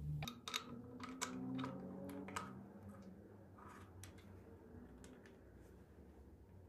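Light, scattered clicks and ticks of small parts being handled: a small greasing tool against the seal of a metal engine-cover inspection cap. They come thickest in the first few seconds, then thin out to faint handling noise.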